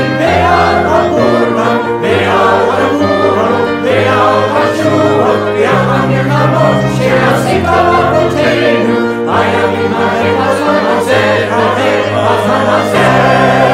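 Mixed amateur choir singing in Hebrew, accompanied by piano and clarinet, with sustained low piano notes changing every second or two under the voices.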